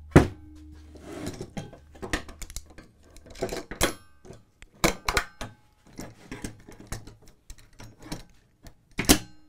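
Quarter-inch steel plate being set down on a workbench and clamped with Festool bench clamps: a series of irregular metallic clanks, knocks and clicks as the plate shifts and the clamps are fitted and tightened. The loudest clank comes just after the start, another strong one near the end.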